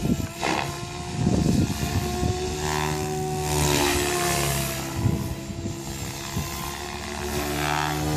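Goblin 630 electric RC helicopter in flight: its rotor blades whoosh, and its Scorpion 4035-560kv brushless motor and drivetrain whine at a steady pitch that shifts slightly as it manoeuvres. The whoosh swells and fades several times.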